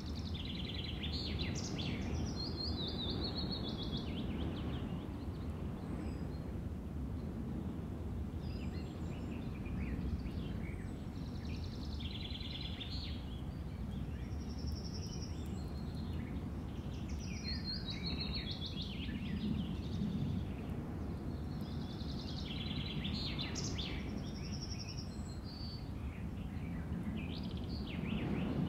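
Outdoor ambience: a steady low rumble of background noise, with a songbird singing short chirping phrases about every five or six seconds.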